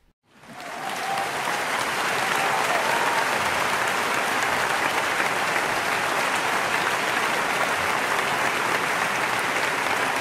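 Audience applauding, fading in quickly about half a second in and then holding steady.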